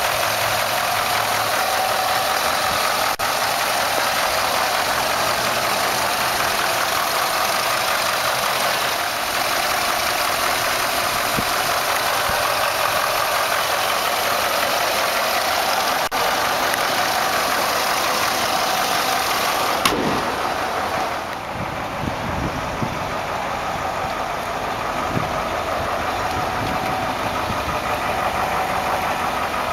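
1981 Ford F100's 5.0-litre carbureted V8 idling steadily under the open hood as it warms up, having just been started after sitting unused a long time. About two-thirds through, the engine sound becomes a little fainter and duller.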